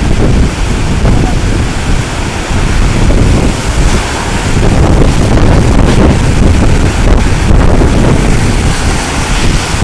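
Strong hurricane wind buffeting the microphone in loud, uneven gusts over the rush of storm surf breaking on the beach.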